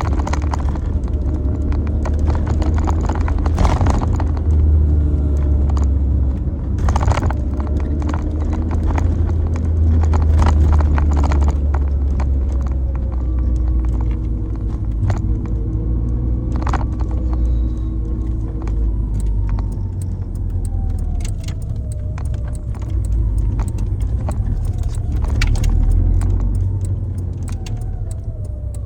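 Lancia Delta HF Integrale Evoluzione I under way, its engine and the road giving a steady low rumble while the engine note slowly rises and falls. Scattered clicks and rattles sound over it.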